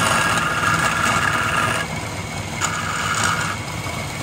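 Wood lathe running with a steel scraping chisel cutting the spinning wooden workpiece: a steady motor hum under a higher scraping sound that stops just under two seconds in and returns briefly around the three-second mark.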